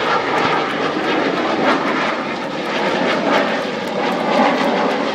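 A jet fighter and a World War II propeller fighter flying past together in formation, their engines making a steady, loud rushing noise with slight swells.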